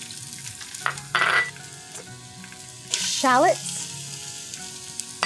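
Diced carrots sizzling as they fry in hot oil in a stainless steel stockpot: a steady sizzle, with a brief louder swell about a second in.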